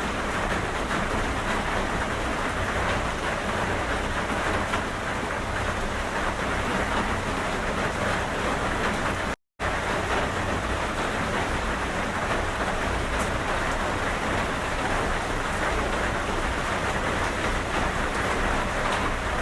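Steady rain falling on a surface, an even hiss with some low rumble underneath. It cuts out to dead silence for a fraction of a second about halfway, then resumes unchanged.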